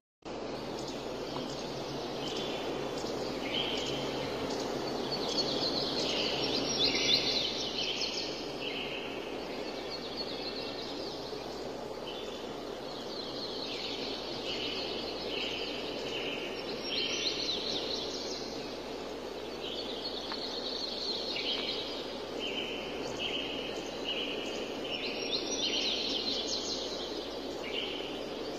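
Forest ambience: a steady background hiss with birds calling over it in runs of short, repeated high notes that come and go in three spells.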